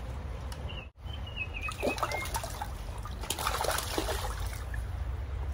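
Shallow river water running, with a hooked trout splashing at the surface as it is landed by hand, loudest about three to four seconds in.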